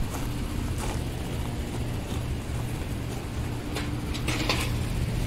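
Steady low hum of air-conditioner outdoor units running, with a few light knocks.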